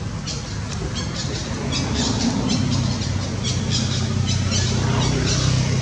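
A string of short, high calls, a few a second, over a steady low rumble that grows a little louder about two seconds in.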